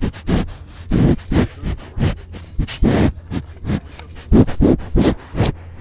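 A quick run of short scraping, crunching noises, about three a second, over a steady low hum.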